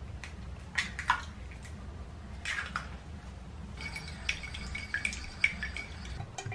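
Kitchen handling sounds: a few light clicks and knocks and a short swish over a steady low hum, then a quick run of small clicks and taps in the second half.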